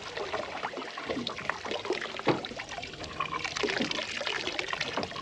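Small waves lapping and splashing against the side of a drifting fishing boat's hull: an irregular run of small slaps and gurgles.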